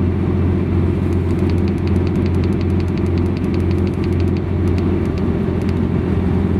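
A steady low engine drone of a truck-mounted refrigeration setup. Over it, from about a second in until near the end, a quick even run of light clicks at about five a second: the set point being stepped on the fridge unit's controller.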